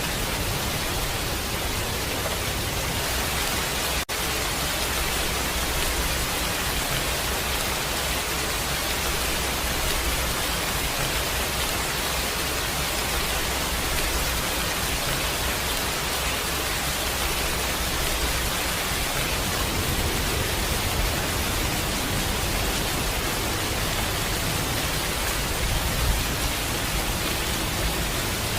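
Steady heavy rain, an even dense hiss with a low rumble underneath. There is a momentary dropout about four seconds in.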